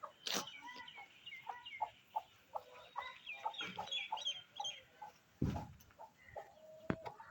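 Hen clucking in short repeated calls, with higher chirps over it during the first half and a few sharp knocks.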